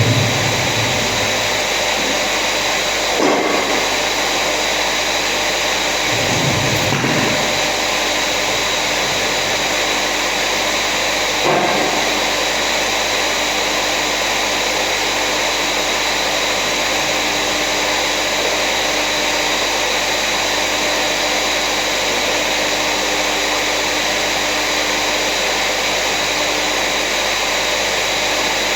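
A motor-driven machine running steadily with a dense whirring hiss, with a few brief knocks about 3, 7 and 11 seconds in.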